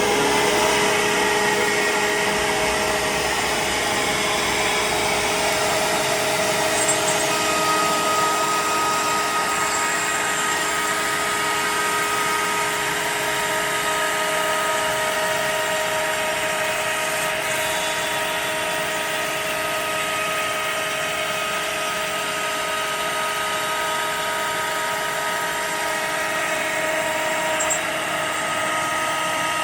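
CNC router spindle running at speed with a steady high whine while the bit cuts a pre-finished shelf board.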